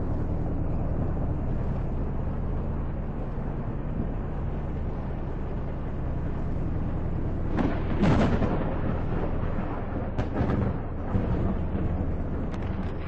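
Vehicle engine droning steadily, then a loud rushing burst of noise about eight seconds in with shorter bursts after it, like wind or storm gusts hitting the vehicle and microphone.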